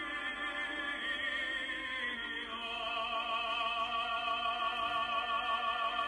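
Opera singing: a voice holding long notes with a wide vibrato, moving to a new note about two and a half seconds in.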